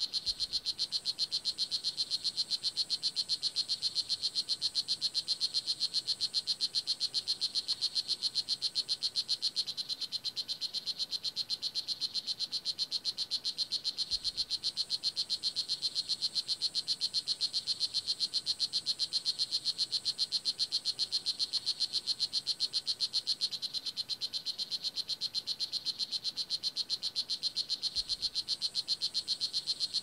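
Male strawberry poison dart frog of the blue jeans morph (Oophaga pumilio) calling: an unbroken train of short, high chirps, about four or five a second. This is its call to attract a mate or warn off rival males.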